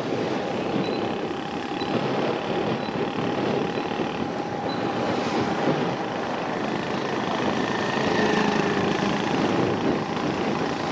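Steady vehicle engine and road noise, heard from a vehicle moving through light street traffic.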